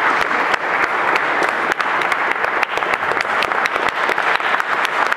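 Applause: many people clapping steadily after a choir song.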